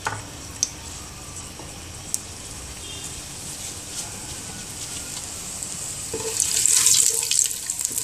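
Chopped garlic and dried red chillies frying in hot mustard oil in a nonstick pot: a soft, steady sizzle that swells about six seconds in into loud crackling and spitting.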